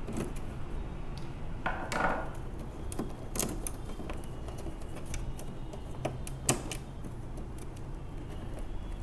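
Scattered sharp clicks and light knocks of small tools and parts being handled on a repair bench, with a short scrape about two seconds in, over a low steady hum.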